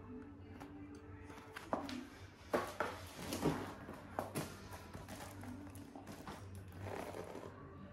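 Cardboard firecracker boxes in plastic shrink-wrap being lifted and shifted in a cardboard carton: a few sharp knocks in the middle, with the crinkle and rustle of the wrap and cardboard.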